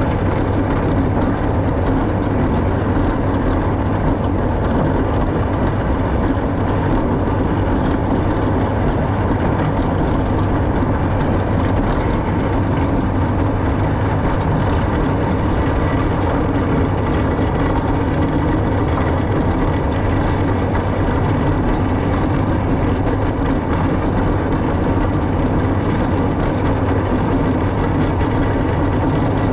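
New Holland 36 forage chopper running steadily under load in grass, blowing chopped grass through its spout into the wagon, with the pulling tractor's engine underneath: an even, continuous mechanical din.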